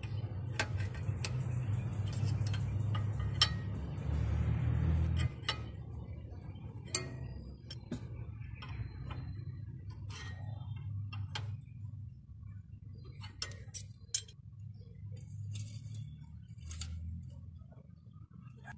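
Toyota 2C four-cylinder diesel engine running at idle, louder for the first few seconds and then settling lower, with sharp metallic clicks over it.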